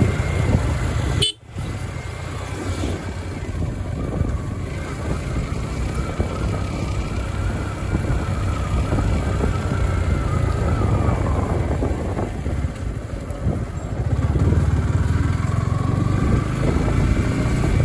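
Motorcycle riding along a road, with its engine and a steady low wind rumble on the microphone. The sound drops out briefly about a second in.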